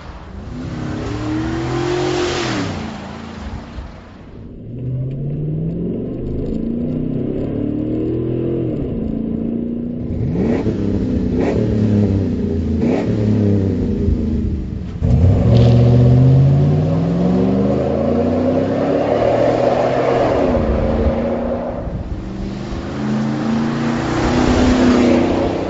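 Exhaust note of a 2010 GMC Sierra's Vortec 5.3 L V8, revving and accelerating several times, the pitch rising and falling with each rev: first on the stock exhaust, then on the Flowmaster Force II cat-back system.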